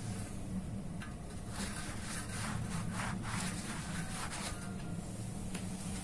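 Pencil scratching on a hollow steel bar in a series of short strokes, tracing a mark through the hole of an angle bracket held against it, over a steady low hum.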